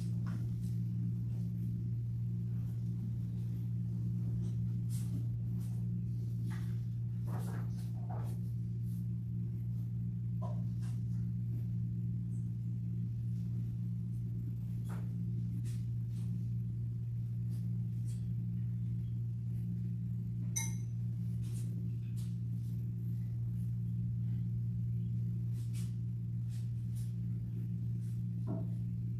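A steady low hum that never changes, with a few faint taps and clicks scattered through it.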